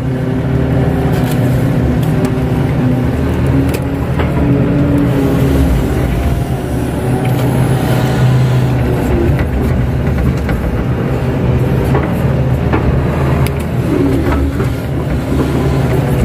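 Kato HD512E crawler excavator's diesel engine running steadily under load, heard from inside the cab while the bucket works wet mud, with a few short knocks along the way.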